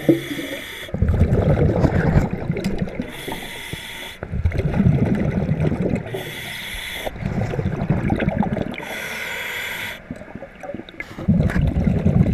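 A diver breathing through a scuba regulator underwater: four short hissing inhalations about three seconds apart, each followed by the low bubbling of exhaled air.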